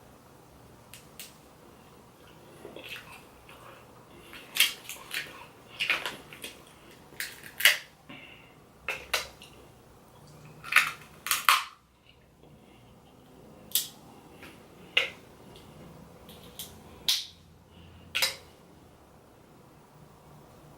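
Eating sounds at a seafood boil: a loose, irregular string of sharp cracks and clicks from shells being broken and picked, busiest in the middle.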